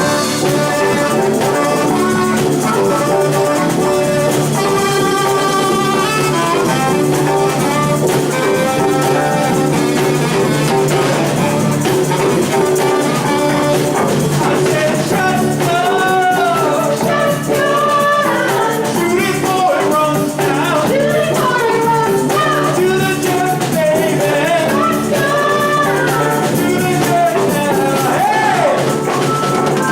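Live band playing a rock tune, with a melody line over a steady beat.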